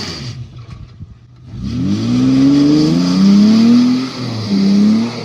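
A 4x4's engine revving hard as it climbs a rock obstacle. The revs climb about a second and a half in, hold, dip briefly, then rise again near the end.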